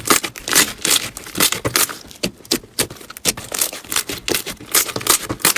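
Hands squeezing and pressing crunchy slime: a run of irregular crackles and pops, several a second.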